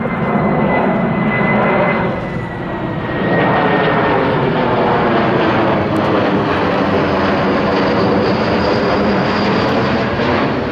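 Embraer KC-390 transport jet flying a display pass, its two IAE V2500 turbofans giving loud, steady jet noise. A high whine slowly falls in pitch over the first few seconds; the noise dips briefly, then grows louder again as the aircraft comes overhead.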